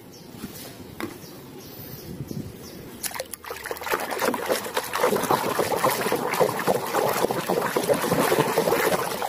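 Hand splashing and swishing toys around in a tub of water, quieter at first with a few light knocks, then louder and busier from about three and a half seconds in.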